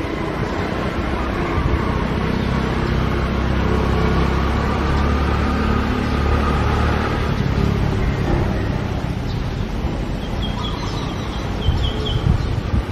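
Steady low rumble of distant road traffic, with a few short high chirps near the end.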